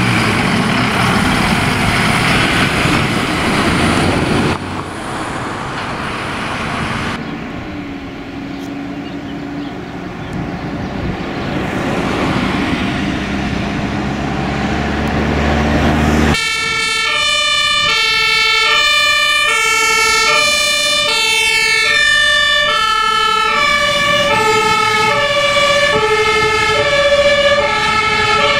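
Fire engines' diesel engines running as the trucks drive past. About halfway through, a fire engine's German two-tone Martinhorn starts, alternating between a high and a low note, each held a bit under a second. It is the warning signal of a fire engine on an emergency run.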